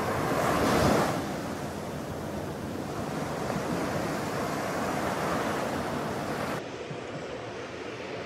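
Sea waves breaking on a beach and washing up the sand, with wind on the microphone; a wave crashes loudest just before a second in. About two-thirds through, the surf gives way abruptly to a quieter, duller steady outdoor rumble.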